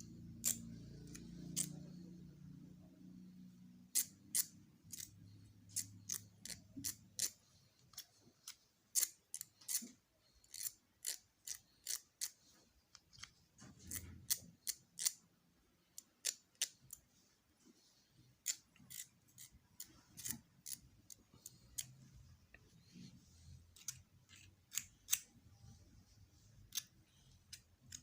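Light, sharp clicks and ticks of small parts of a Hilti power tool being handled and fitted while it is being greased, coming irregularly, sometimes in quick runs of two or three.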